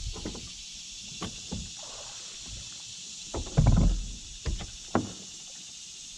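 Knocks and clunks on a bass boat's bow deck as the bow-mount trolling motor is lifted and stowed, the loudest a heavy thump about three and a half seconds in, with a few lighter knocks around it.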